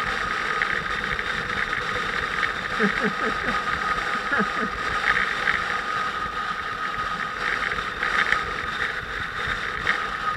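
Motorcycle engine running steadily while riding, with a constant rush of wind noise over it.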